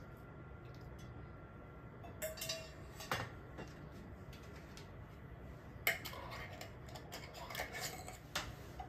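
Kitchenware clinking and knocking: an enamel pot and mesh strainer set down after pouring pickling liquid, then a lid handled and fitted onto a glass jar. A handful of sharp clinks spread over several seconds, one with a brief metallic ring.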